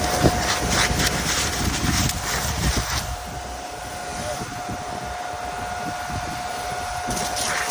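Forest fire burning over a steady roar, with dense crackling in the first three seconds that then thins out. A steady high whine runs through it.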